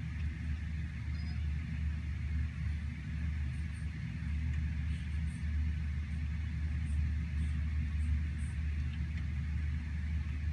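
Steady rain falling on a forest canopy, a soft even hiss, over a steady low rumble that is the loudest part of the sound.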